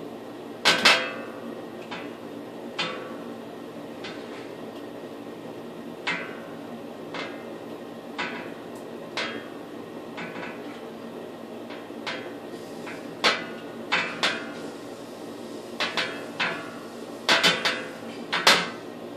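Irregular sharp metallic knocks and clinks from the vanity light fixture and its mounting hardware being handled and fitted at the wall, about a dozen in all. The loudest come about a second in and near the end, some in quick pairs, with a brief ring after each.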